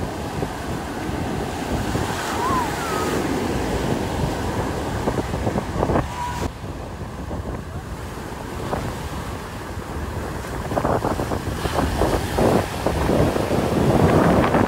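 Sea surf washing and breaking on the beach, mixed with wind buffeting the microphone; the sound swells louder near the end.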